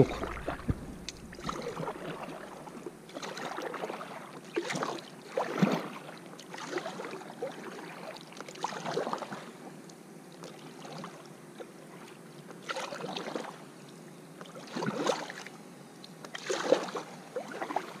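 Kayak paddle blades dipping into and pulling through calm water, a splashy swish every second or two.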